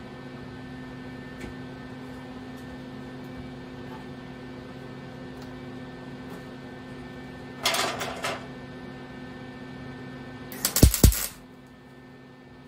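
MIG welder laying short spot welds to fill holes in a cast-iron drill press table: a brief burst of arc crackle about eight seconds in, then a louder, spitting crackle lasting about half a second near the end. A steady electrical hum runs underneath.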